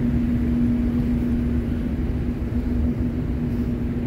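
Steady low drone of a ferry's machinery and ventilation on its enclosed car deck, with one constant hum over the rumble.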